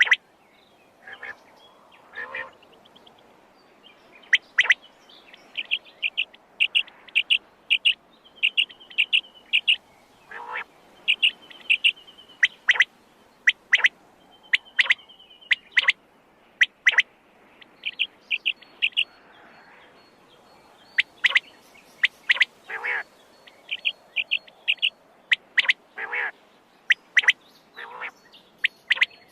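Quail calling: sharp, high call notes repeated irregularly and in quick rapid runs, with a few softer, lower notes in between.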